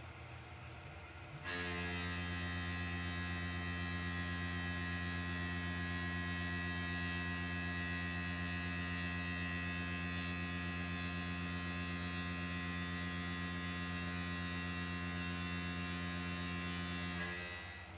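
Tormach CNC mill face-milling metal stock with a Shear Hog face mill under flood coolant: a steady, pitched hum. It starts suddenly about a second and a half in, as the cutter enters the cut, and dies away shortly before the end, as it runs out.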